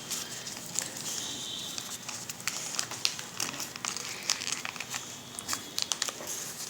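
A sheet of paper being folded and creased by hand into an origami boat: crinkling with scattered, irregular sharp crackles.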